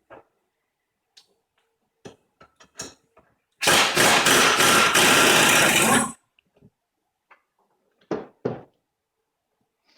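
Metal clicks and knocks from a manual A/C hose crimper being backed off after a crimp. About three and a half seconds in comes a loud burst of dense mechanical noise lasting about two and a half seconds, with two more knocks near the end.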